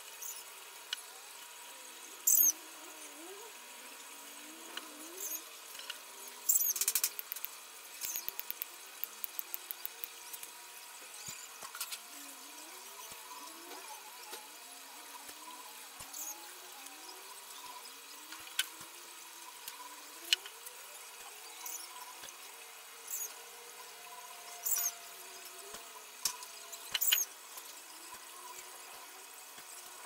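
Wire mesh of a cage trap being bent and worked by hand: short, sharp, high squeaks and scrapes of wire rubbing on wire, scattered through, with a quick run of clicks about eight seconds in.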